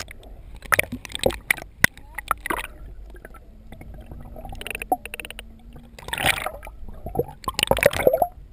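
Sound picked up by an underwater camera: muffled water noise with a string of sharp knocks and clicks, a steady low hum for a couple of seconds mid-way, and louder sloshing bursts near the end.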